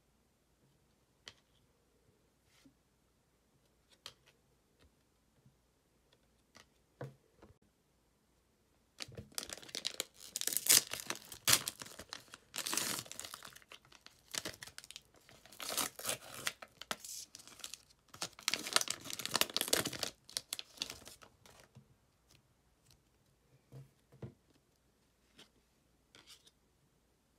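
Basketball trading-card pack wrapper being torn open and crinkled in the hands: a dense run of tearing and crackling from about nine seconds in to about twenty-one seconds. Faint clicks of the cards being handled come before and after.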